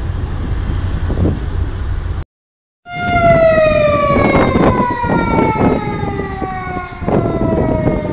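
Low wind rumble on the microphone, cut by a brief dropout about two seconds in; then a siren tone with a stack of overtones that winds slowly and steadily down in pitch, with a few scattered knocks underneath.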